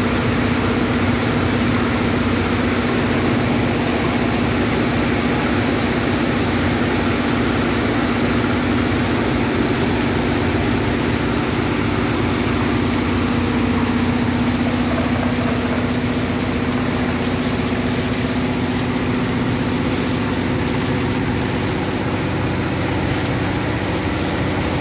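Heavy rain splashing down onto standing water: a dense, steady hiss. A steady low hum of some motor or engine runs underneath.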